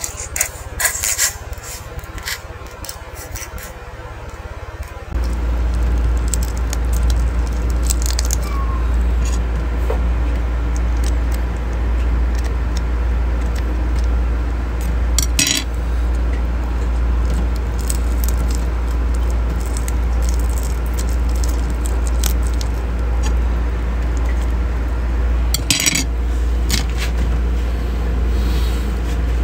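Chopsticks and fingers clicking and scraping against a ceramic plate and crab shells while crab fat is mixed into rice, a few sharp clicks scattered through. Under it runs a steady low rumble that grows louder about five seconds in.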